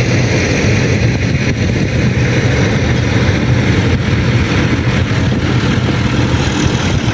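Diesel tractor engine running steadily, a constant low hum.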